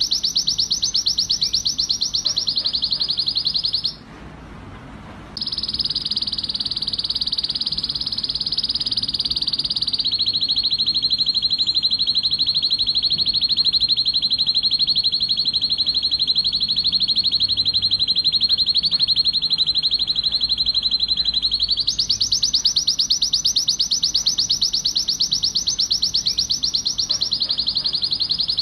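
Male red-factor canary singing a long, rapid trilled song in excited breeding condition. The trill stops briefly about four seconds in, drops to a lower, steady roll for a long stretch in the middle, then rises in pitch again.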